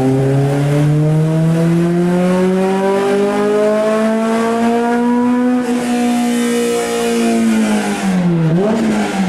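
Car engine on a chassis dyno making a full pull in fifth gear: the revs climb steadily for about five and a half seconds, hold near the top, then fall away as the driver lifts off near the end, with a brief blip of the throttle as they drop.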